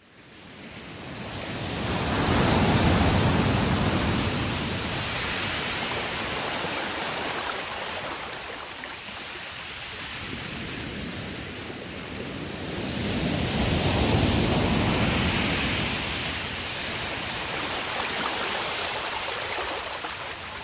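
Rushing surf-like noise that fades in at the start and swells up and falls back twice, like waves washing ashore.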